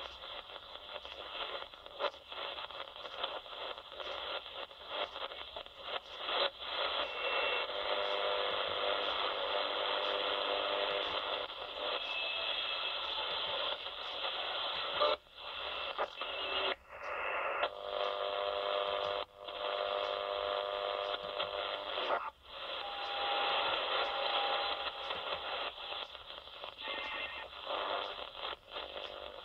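Shortwave AM reception on a CommRadio CR-1 receiver as it is tuned across the bands: steady hiss and static with short whistling tones coming and going. The sound briefly cuts out several times.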